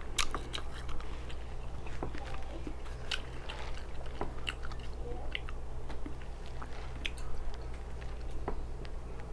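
Close-miked chewing of deep-fried rib meat: many short, scattered wet mouth clicks and smacks over a steady low hum.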